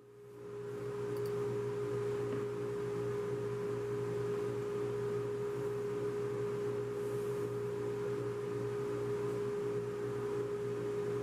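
Steady machine hum with one strong, constant pitched tone, from woodshop machinery left running; it swells up in the first second and then holds unchanged.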